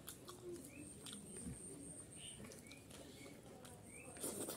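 Quiet hand-eating sounds: fingers mixing rice on a plate, with a louder mouthful about four seconds in. A bird chirps repeatedly in the background, short rising chirps about once or twice a second.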